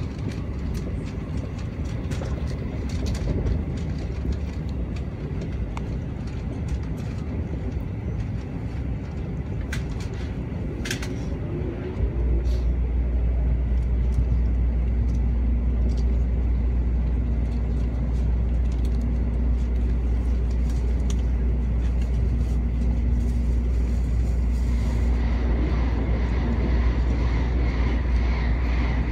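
Cabin running noise of an N700A Shinkansen at speed, a steady low rumble. About twelve seconds in it suddenly steps up to a heavier, louder rumble as the train enters a tunnel, and near the end a higher hiss joins in.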